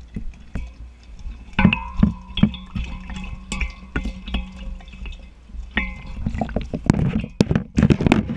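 Dogs lapping water from a bowl, heard from a camera in a waterproof housing sitting in the bowl: irregular wet laps and clicks that get busier and louder near the end. A held ringing tone sounds underneath from about a second and a half in.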